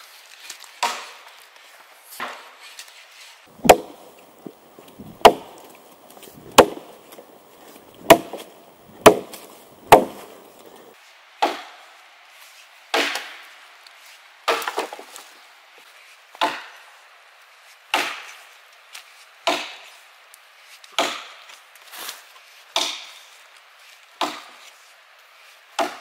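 Axe chopping into felled logs to cut them to length: a steady series of sharp strikes about every second and a half.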